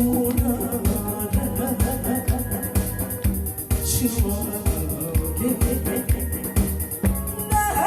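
Trot song playing with a steady beat, about two drum strokes a second, under a sustained melody.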